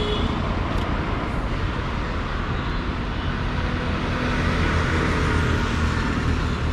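Steady road traffic noise, vehicles running continuously with no sudden events.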